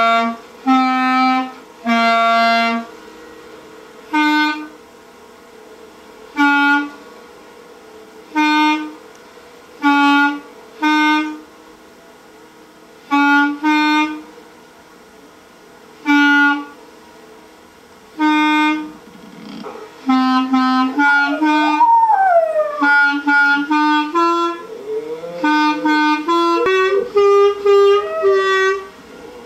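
Clarinet played solo: single held notes one at a time with short pauses between them, then a quicker run of notes in the last third.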